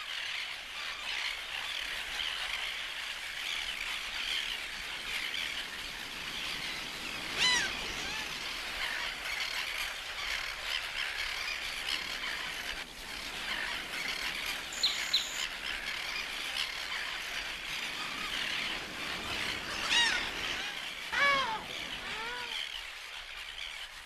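Greater crested tern colony: a steady din of many terns calling, with a few louder, nearer calls standing out about a third of the way in and twice near the end.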